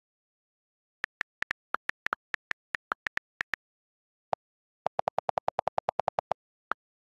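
iPad on-screen keyboard click sounds. About sixteen quick key clicks come as a short phrase is typed. Then a lower-pitched delete-key click, followed by a fast even run of delete clicks as the delete key is held to erase the text, and one more key click near the end, with dead silence between the clicks.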